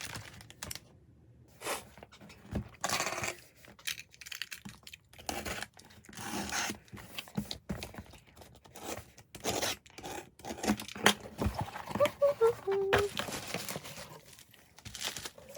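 Plastic blind-pack packaging being torn open and crinkled by hand, in irregular rustles and snaps.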